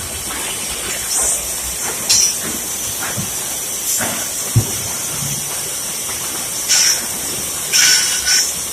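Bandsaw running and cutting through a board: a steady high hiss, with short louder rasps as the blade bites and a brief low thump about halfway through.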